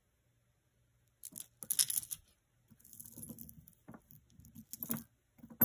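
Beaded necklaces picked up and untangled by hand, the strands of beads clicking and rattling against each other in several short irregular bursts starting about a second in.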